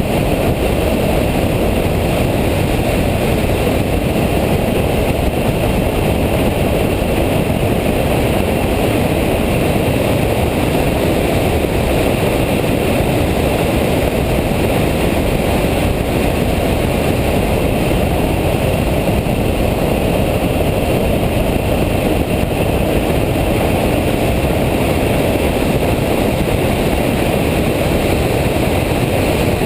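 Steady, loud in-car din of a Nissan Nismo lapping a race track at speed: engine, tyre and wind noise blended together.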